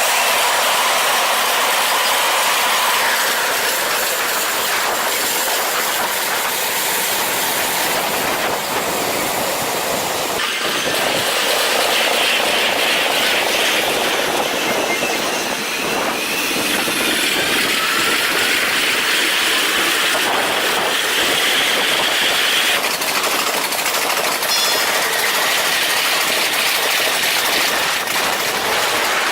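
Train running along the rails: a loud, steady noise of wheels on track, with faint tones that glide up and down above it.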